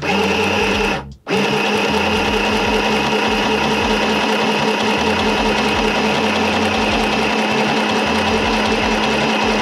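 Singer M1000 mini sewing machine stitching at its single fast speed, switching straight on at full speed with no ease-in. It stops briefly about a second in, then runs on steadily with a lawn-mower-like hum.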